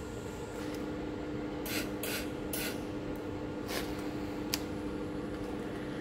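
A few short hisses from an aerosol spray can, anti-spatter coating being sprayed around the welding torch's shroud, over a steady machine hum.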